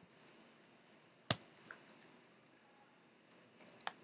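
A few scattered clicks of computer keys and mouse buttons, the sharpest about a second and a quarter in, over faint room hiss.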